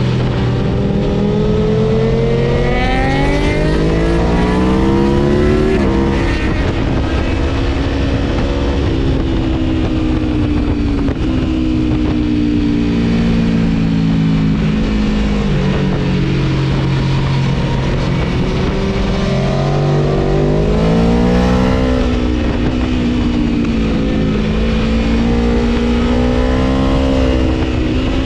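Tuned Aprilia Tuono V4 motorcycle engine pulling hard with a rising pitch and dropping sharply at a gear change about six seconds in. It then eases off and builds again through several short rises in the last third.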